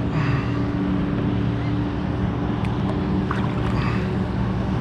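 Steady low drone of a boat engine running at a distance, over water and wind noise.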